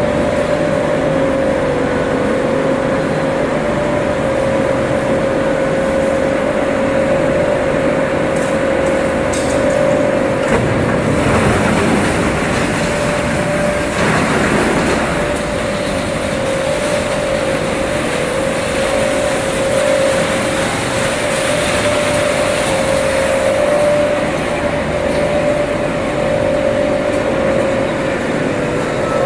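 Refrigerator recycling line machinery running steadily, with a constant motor hum under a rough mechanical noise that grows louder and harsher for a few seconds about halfway through.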